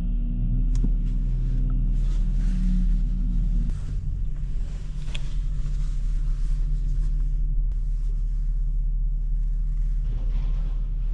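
Tow truck's engine running steadily with a deep, even hum; its note shifts slightly about four seconds in.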